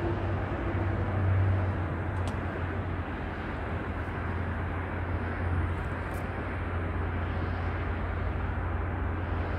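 Steady outdoor background noise: an even low rumble under a soft hiss, with no distinct event.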